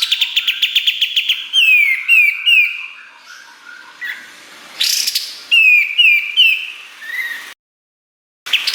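Kapas tembak songbird singing: a fast, rapid trill, then three sharply falling whistled notes, a pause, and another run of three falling whistles. The song breaks off abruptly near the end and resumes briefly.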